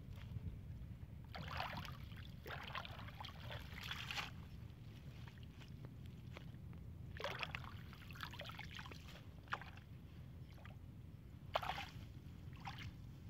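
Water hyacinth being pulled by hand from shallow muddy water: splashing and sloshing with plant rustle in three bursts, over a steady low rumble.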